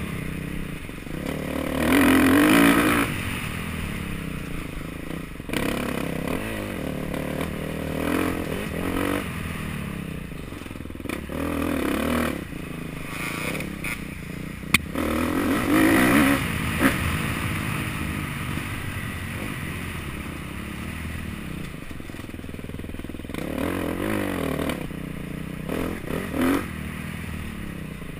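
Dirt bike engine being ridden off-road, repeatedly revving up and easing off as the rider works the throttle through the trail. A sharp knock comes about halfway through, with a smaller one shortly after.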